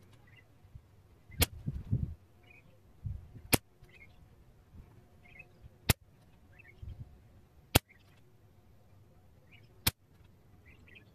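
Weihrauch HW100T PCP air rifle firing .22 pellets: five sharp single shots about two seconds apart.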